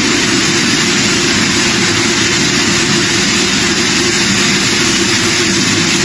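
Tornado wind blowing hard and steadily, a loud, even rush of noise that does not let up.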